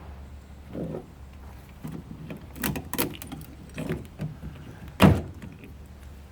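Metal knocking and clinking as the electric motor of a car radiator cooling fan is pried apart with hand tools, with a sharp knock about five seconds in the loudest, over a low steady hum.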